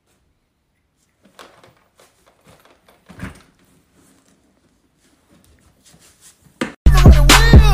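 Faint handling noises from a hard-shell wheeled suitcase being closed and lifted: scattered soft clicks and rustles, with one louder knock about three seconds in. Loud hip-hop music with a heavy bass beat cuts in suddenly near the end.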